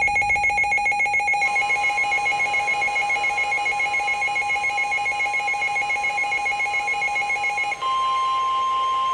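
A weather radio's built-in alarm beeping in fast pulses. From about a second and a half in, NOAA Weather Radio's steady 1050 Hz warning alarm tone sounds with it, the signal that a warning message is about to be read. The pulsing alarm stops about eight seconds in, and the steady tone carries on alone.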